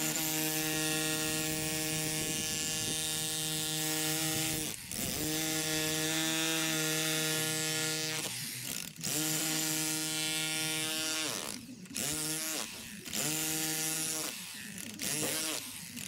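Electric demolition hammer chiselling up very hard concrete, run in bursts of a few seconds with short pauses between them. The pitch rises as the motor picks up speed at the start of each burst.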